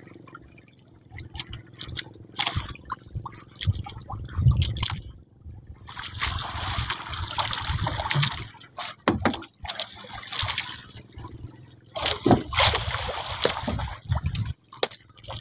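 Water sloshing and splashing, with scattered knocks and clatter. There are two longer splashy stretches, about six and twelve seconds in.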